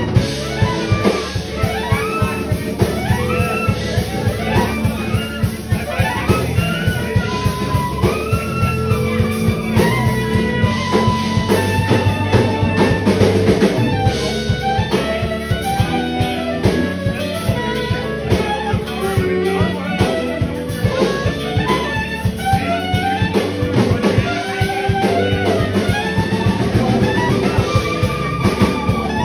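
Live jazz band playing: a saxophone carrying a running, gliding melody over electric guitar and a drum kit keeping a steady beat.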